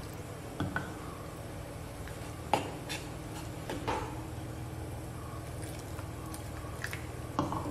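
Steel spoon clinking and scraping against the bowl while stirring water into wheat flour, a handful of short sharp clinks over a steady low background hum.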